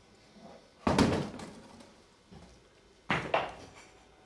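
Lumps of coke knocking against a sheet-steel bin as they are handled and sorted: one sharp knock about a second in, then two quick knocks about three seconds in.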